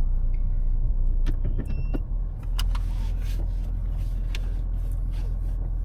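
Four-wheel drive's engine idling, heard inside the cabin just after parking: a steady low rumble with several sharp clicks and knocks in the first few seconds.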